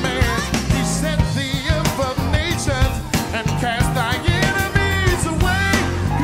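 Band music with a lead voice singing over a drum beat, bass guitar and keyboard.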